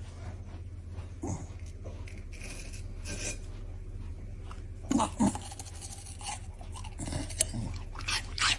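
A dog chewing, with short crunching and biting sounds scattered over a steady low hum.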